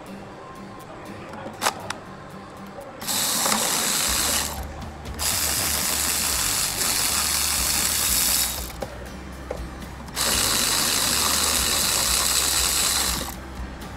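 Cordless electric ratchet running in three bursts, about one and a half, three and three seconds long, as it undoes the mounting bolts of a Hyundai Tucson's 4WD coupling.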